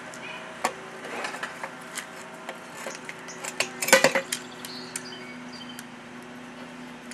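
Metal tools prying and scraping at a lawn tractor tire bead on its wheel rim: scattered clinks and scrapes, loudest in a short cluster about four seconds in.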